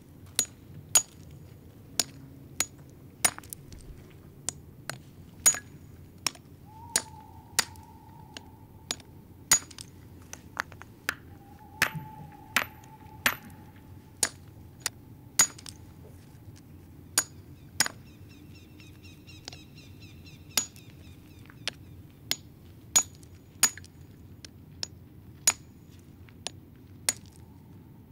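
Small hand hammer striking stone chips, sharp clinks at an uneven pace of about one to two a second.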